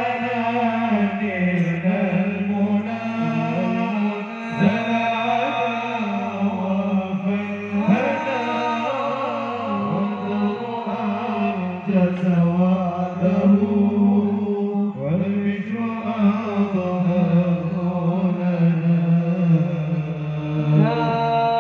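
Male munsyid voices singing sholawat into microphones: long, wavering held notes without clear words, over a steady low sustained note.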